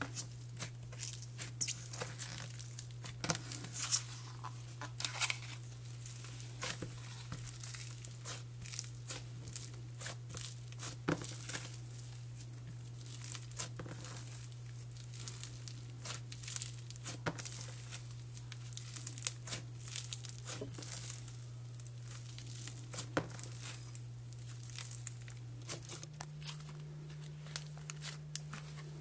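Cloud slime made with instant snow being kneaded and stretched by hand: a continuous run of soft crackles and tearing snaps, over a steady low hum.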